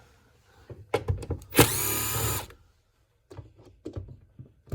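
Cordless power driver runs for just under a second with a steady whine, undoing a door-card bolt, after a few short clicks of the bit being seated.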